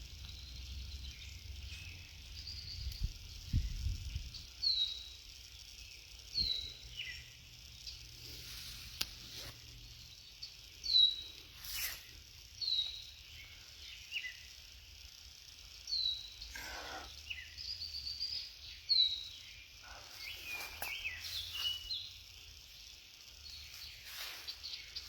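Wild birds calling: short, high, downward-slurring chirps repeated every second or two, with a few lower chirps, over a steady faint high hiss.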